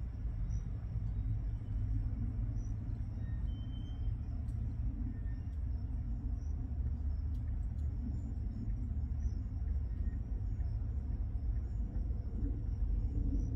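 Vehicle engines idling: a steady low rumble that holds without change.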